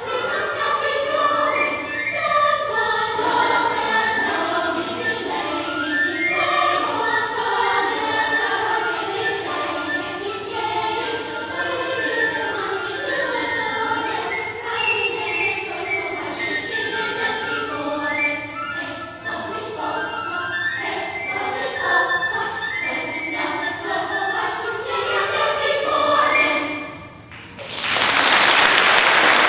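Children's choir singing, the song ending about 27 seconds in; applause breaks out straight after.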